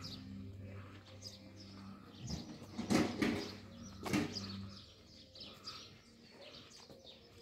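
Small birds chirping, many short falling chirps in quick succession, over a low steady hum that stops a little under five seconds in. Two louder knocks come near the middle.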